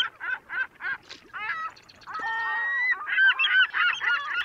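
Birds calling: a run of short calls about three a second, then one longer held call, then a quick flurry of calls.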